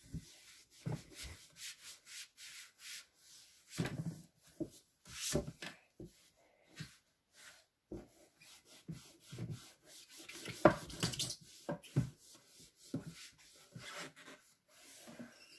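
A cloth wiping the inside of a drawer: irregular short rubbing strokes, with a louder scrape a little after ten seconds in.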